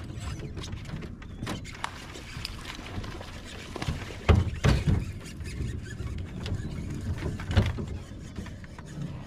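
Rod and reel handling sounds from a hooked bowfin being fought from a small aluminium boat: repeated clicks and ticks over a steady low rumble, with a few loud knocks a little before halfway and again later.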